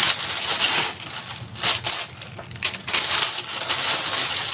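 Close rustling, crinkling and clattering of things handled on a kitchen counter, in quick irregular crackles with a short lull in the middle.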